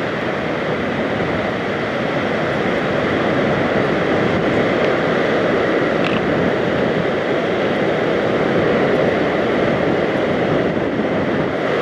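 Steady rush of wind over a camera microphone while riding a zip line, with a faint steady whine.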